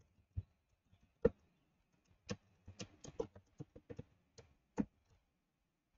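Computer keyboard being typed on: about a dozen irregular key clicks that stop about five seconds in.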